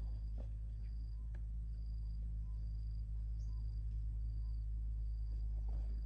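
Short high chirps repeating about once a second over a steady low rumble.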